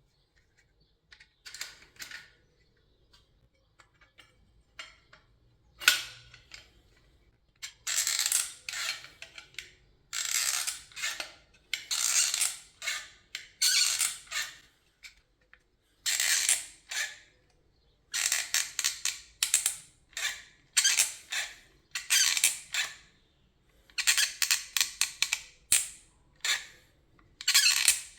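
Door handle pressed down and let go again and again, its mechanism giving a strange, unpleasant scratchy squeak with each movement.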